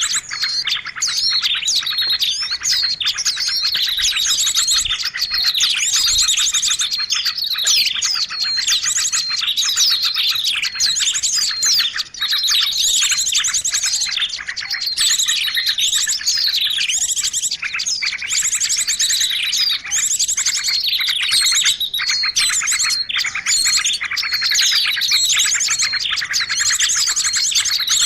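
Songbird chirping and twittering in a dense, nonstop stream of quick trills and sweeping high notes. It is a recorded bird-song tutor track (masteran) for teaching cage birds new song.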